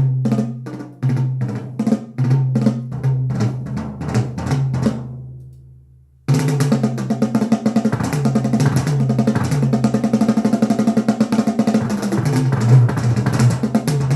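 Drum-led music played through a JBL Control 28 passive loudspeaker (8-inch woofer, 1-inch horn-loaded tweeter) as a sound demo. A steady beat of drum hits with a bass note fades out about six seconds in, then a louder, fuller passage starts abruptly.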